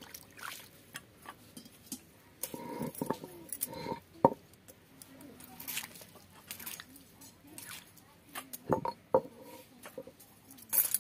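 Water poured and splashing over a stone grinding slab and stone roller as they are rinsed and wiped by hand, with a few sharp knocks, the loudest about four seconds in and more near the end.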